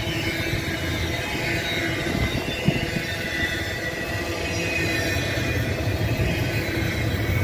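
Double-stack intermodal freight cars rolling past on steel wheels: a steady rumble and clatter from the rails, with one sharp click about two and a half seconds in.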